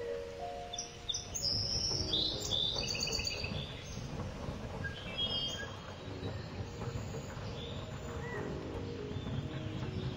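Birds chirping, in quick clusters mostly in the first half, over soft sustained lower musical notes.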